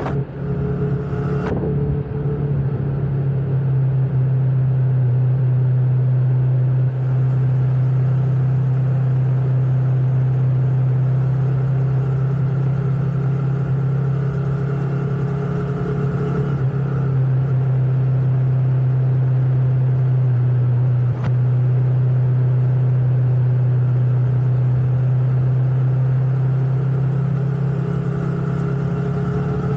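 Motorcycle engine running steadily at cruising speed, heard from on board, a loud, even low hum with road noise. Its pitch rises slightly near the end as it picks up speed.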